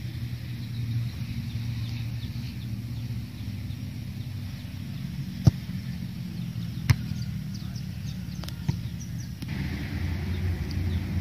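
Football kicks: two sharp thuds of a boot striking the ball about a second and a half apart midway, and a fainter one later, over a steady low outdoor rumble with birds chirping.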